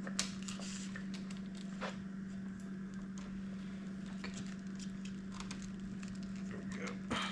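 Light clicks and rustles of a motorcycle speedometer cable and nearby parts being handled and routed by hand, over a steady low hum.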